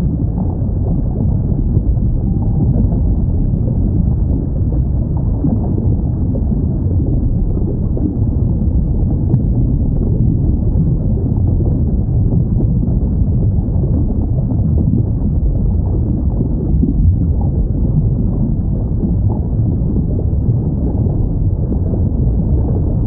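Underwater recording of whale sounds: a steady low rumble of water noise, with a few faint short whale calls rising out of it now and then.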